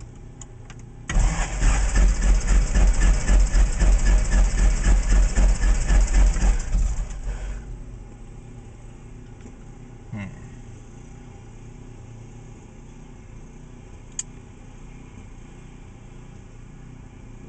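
Cessna 172's four-cylinder fuel-injected Lycoming engine turned over by its electric starter. It cranks in an even rhythm for about six seconds without catching, then winds down when the key is released. The mixture is at idle cutoff, which a companion takes for the reason it won't fire.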